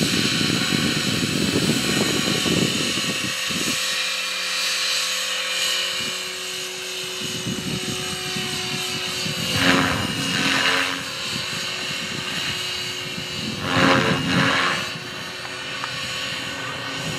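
Align T-Rex 500 RC helicopter in flight: a steady high-pitched whine from its motor and rotors, swelling louder twice, about ten and fourteen seconds in.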